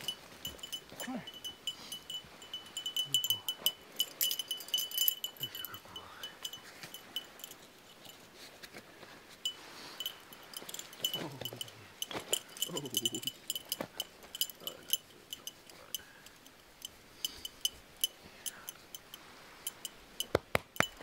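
Metal tags on a German Shepherd's collar and harness jingling in quick, irregular clinks as the dog moves about and is handled, with a few short whines from the dog.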